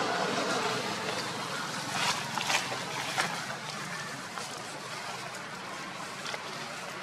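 Steady outdoor background noise with a few short crackling clicks about two to three seconds in, like dry leaves being stirred.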